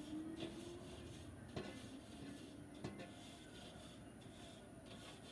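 Grill scraper worked back and forth over the metal cooking grate of a Weber charcoal kettle grill to clean it, a faint scraping with a few light knocks.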